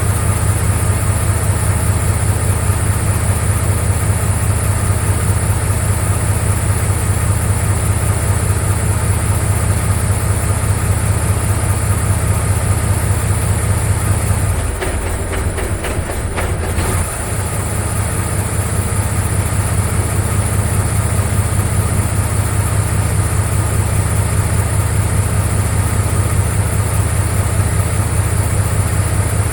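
Machine running with a steady low drone. About halfway through the drone briefly drops out with a few clicks, then picks up again. This is the odd behaviour during a cutout test that the owner doubts is normal.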